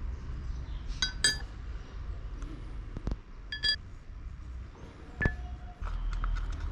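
Metal knife parts being handled on the workbench, giving short ringing clinks: two close together about a second in, another pair about halfway through, and a single one later, over a low steady rumble.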